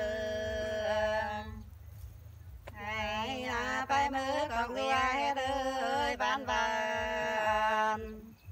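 Nùng women singing hát sli, the Nùng folk love-song style, without accompaniment: long held, wavering notes, a brief pause for breath about two seconds in, then another long sung phrase.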